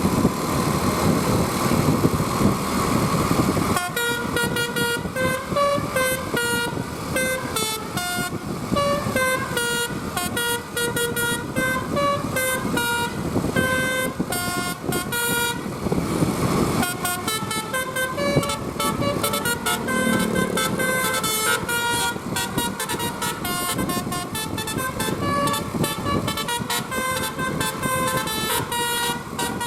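A tour bus's 'Basuri' telolet musical horn playing a quick tune of short, clear, stepped notes, starting about four seconds in over the bus's engine and road noise.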